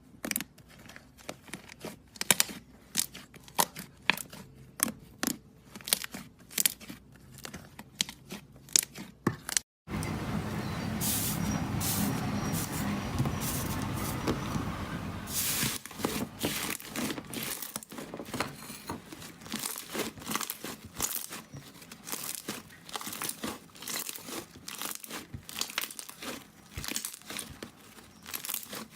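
Iceberg slime, its dried, hardened top crust crackling and crunching in quick sharp clicks as it is pressed and broken up by hand. About ten seconds in the sound cuts out briefly, then gives way to some five seconds of denser, continuous crinkling and crunching before the separate crackles return.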